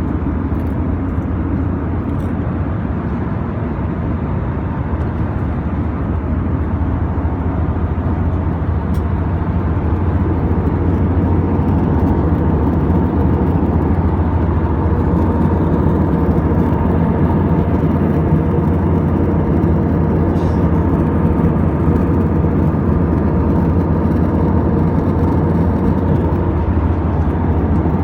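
Steady drone of an aircraft cabin in flight, a low even rumble that grows slightly louder about ten seconds in.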